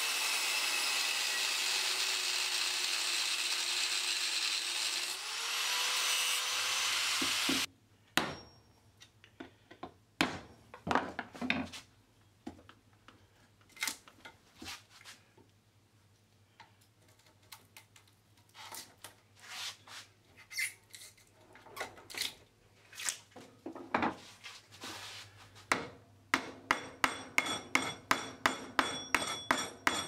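Angle grinder cutting down the weld line of a microwave oven transformer's steel core to free the coils, its whine dipping and recovering under load before stopping suddenly about eight seconds in. Then scattered knocks and clicks as the transformer is worked in a vice, and near the end a fast run of regular sharp taps, about three or four a second.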